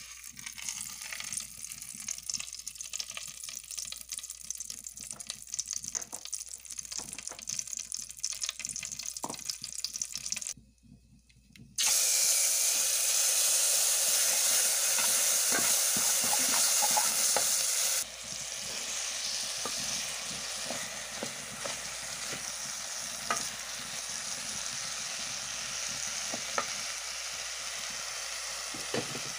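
Hot oil sizzling and crackling in an aluminium pot as a seasoning lump is stirred with a wooden spoon. After a break, rice frying in the oil sizzles loudly for several seconds, then settles to a steadier, quieter sizzle with occasional scrapes and taps of the wooden spoon as the rice is stirred.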